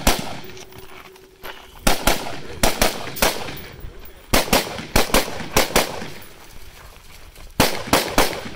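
Gunshots from a competitor's firearm being fired through a shooting stage. There is a single shot at the start, then three rapid strings of shots a few tenths of a second apart, with pauses of about a second between the strings.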